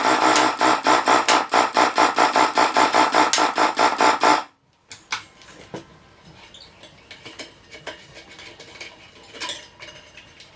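Fast rhythmic background music that cuts off suddenly about four and a half seconds in, followed by faint scattered clicks and rubbing as a bicycle wheel and tyre are handled.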